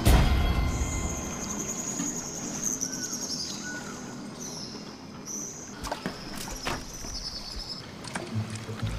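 Film forest ambience: insects chirring in pulses, with a few short rising bird chirps. A deep hit sounds at the very start, and two sharp cracks come about six and seven seconds in.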